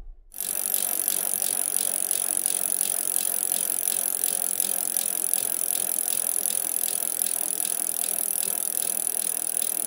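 A steady mechanical rattle of small, evenly repeating clicks under a bright hiss, starting abruptly a moment after a brief silence.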